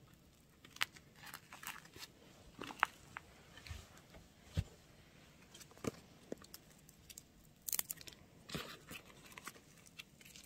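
Faint, scattered crinkles, rustles and small taps from handling a tape-covered paper squishy and the plastic sheet under it.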